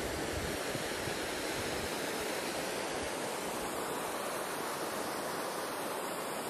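Steady rushing of a shallow, rocky mountain river running over small rapids.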